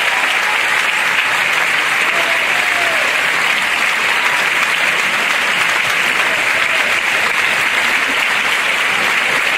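Theatre audience applauding steadily during the dancers' curtain call.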